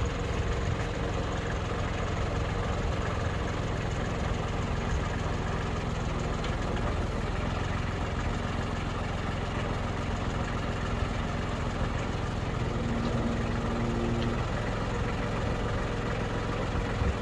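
Loader tractor's engine idling steadily.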